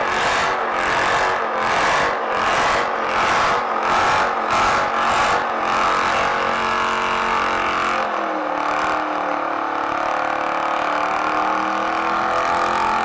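Dodge Challenger doing a burnout: engine held at high revs while the rear tyres spin and smoke. Pulsing surges come about one to two a second in the first few seconds, then the engine holds a steadier tone.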